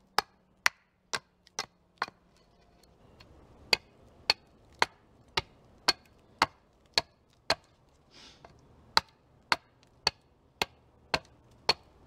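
Hatchet chopping the end of an upright wooden pole against a chopping block, carving it to a point: sharp, regular chops about two a second, with two short pauses.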